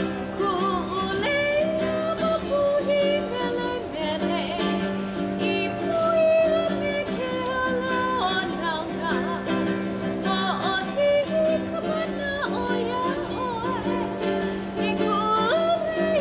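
A woman singing to her own accompaniment on an E.L. Woodworks traditional tenor ukulele, strummed in a steady rhythm.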